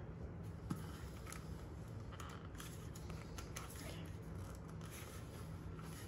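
Light plastic clicks and scrapes as the LatteGo milk container is handled and fitted onto a Philips 5400 espresso machine, over a low steady hum.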